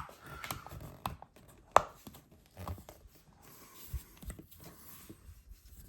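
Handling noise from the electric kettle's power cord and plug: scattered light clicks and knocks, with one sharper click a little under two seconds in.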